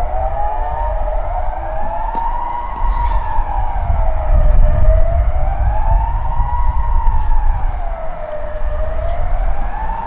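Kockum Sonic Delta electronic civil-defence sirens sounding the Swiss general alarm: a wailing tone rising and falling about every four and a half seconds. More than one siren is heard, slightly out of step with each other.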